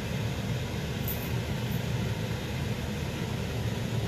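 Steady low rumble of a gas stove burner flame running on high under an upturned wok.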